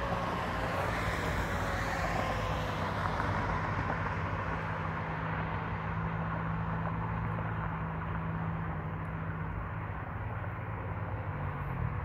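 Road traffic: a vehicle goes by, its noise loudest in the first few seconds and then fading, over a steady low engine hum. Faint tones slowly fall in pitch early on.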